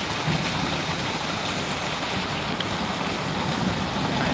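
Muddy flash-flood water rushing through a gravel riverbed: a steady, even rushing noise.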